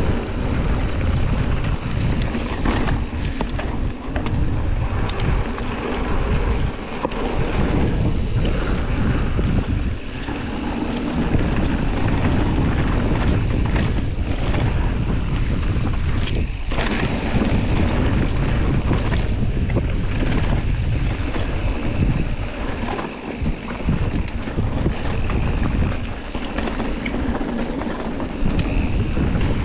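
Wind rushing over a GoPro's microphone and tyres running on a dirt trail during a downhill mountain-bike descent, with frequent knocks and rattles as the bike goes over bumps.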